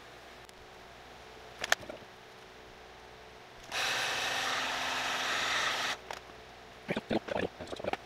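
Wagner electric heat gun switched on, blowing steadily for about two seconds before cutting off. A sharp click comes before it, and a few clicks and knocks of handling near the end.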